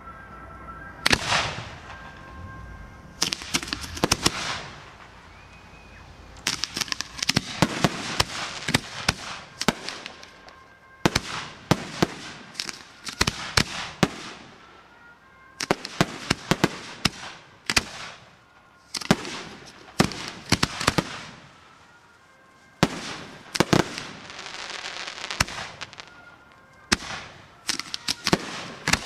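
Fireworks display: volleys of aerial shells and cake shots bursting in sky, clusters of sharp bangs and crackle every few seconds with brief lulls between.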